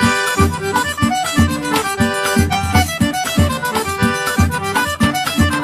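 Instrumental intro music with a melody over a steady beat of about two low thumps a second.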